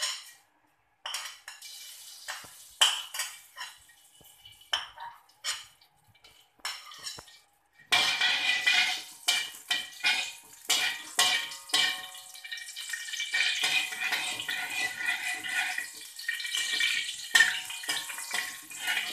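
Slotted metal spatula scraping and tapping against an aluminium wok as rempah tumis spices are stirred in a little hot oil. From about eight seconds in, a loud steady hiss of the spices frying joins the scraping.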